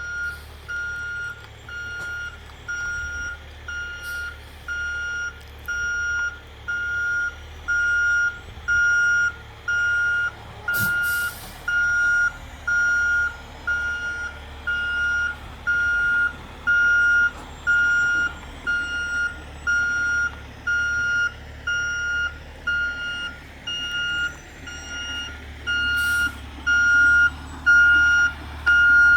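Tow truck's back-up alarm beeping steadily, about once a second, while the truck reverses, over the low, steady rumble of its engine.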